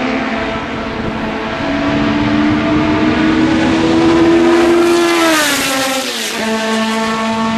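Historic Formula 1 car engines running at high revs. One engine's note climbs slowly for a few seconds, then drops steeply about five and a half seconds in, and a steady engine note carries on after it.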